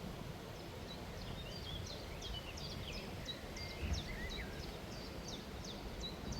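A songbird singing a quick run of high, sharp chirping notes, several a second, over a steady low rumble.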